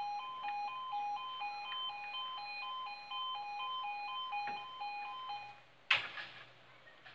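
Level crossing's two-tone warning alarm alternating between two pitches, a few changes a second, cutting off about five and a half seconds in as the barriers finish lowering. A single loud clunk follows just after, the barrier booms coming to rest in the down position.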